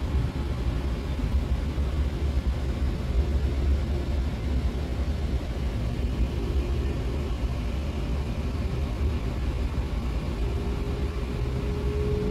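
Passenger train running over a railway bridge, heard inside the carriage: a steady low rumble of the wheels and running gear. A faint steady whine comes in near the end.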